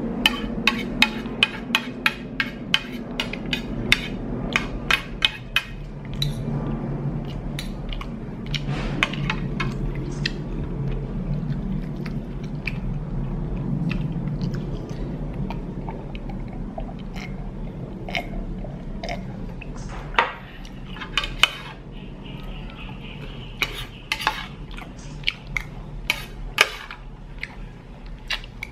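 Metal spoon and fork clinking and scraping against a ceramic plate while scooping up rice and broth. The clicks come in a quick run at first, then more sparsely, over a low steady hum.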